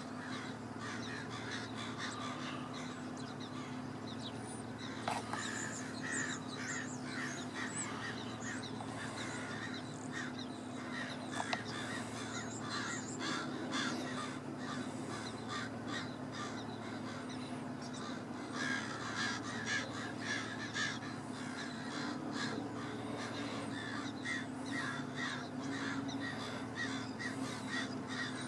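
A flock of blackbirds calling all around: a dense chatter of short, repeated calls that goes on throughout, busiest in the second half, over a steady low hum.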